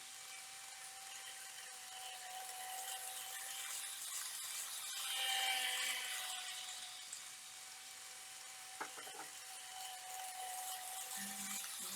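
Model of an E5 series Shinkansen running on home layout track: the small electric motor gives a steady whine over the rattle of wheels on the rails, growing louder as the train passes close about five seconds in and then fading. A couple of sharp clicks, from wheels crossing rail joints, come partway through.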